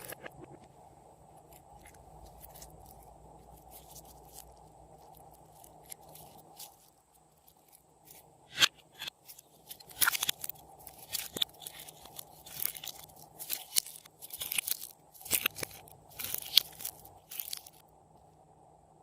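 Slime being squished and worked by hand. It starts with faint scattered clicks, and from about halfway a run of loud crackling, popping squishes that stops shortly before the end.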